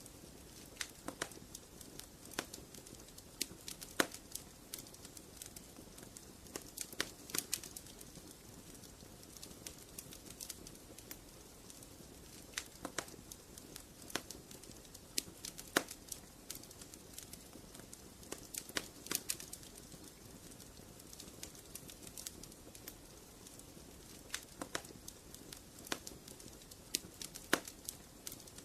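Wood fire crackling in a fireplace: irregular sharp pops and snaps, some in quick clusters, over a soft steady hiss of burning.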